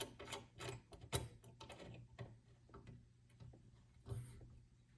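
Faint quick clicking and ticking of small metal parts as the fasteners of a metal door handle are snugged up. The clicks come thick at first, then thin out, with a brief rustle near the end.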